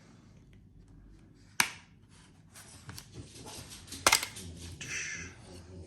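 Small hard parts of a video doorbell kit being handled: two sharp clicks, one about a second and a half in and one about four seconds in, with light scraping and rustling between them.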